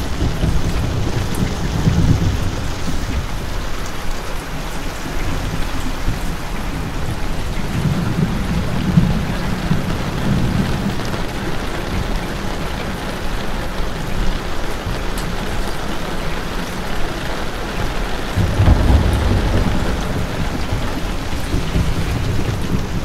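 Steady rain falling as a constant hiss, with deep rumbles swelling up three times: near the start, around the middle and near the end.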